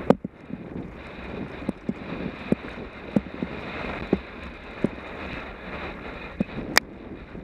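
Wind rushing over a helmet-mounted camera while riding a dirt trail, with irregular sharp knocks and rattles as the bike goes over bumps. The loudest knock comes right at the start, with another sharp one near the end.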